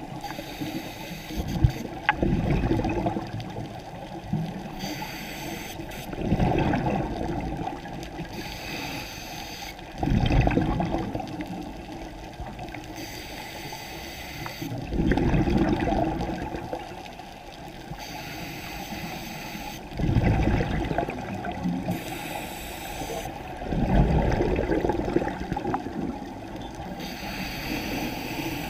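Scuba regulator breathing underwater: a hiss on each inhale, then a louder burst of bubbling exhaust, repeating about every four to five seconds.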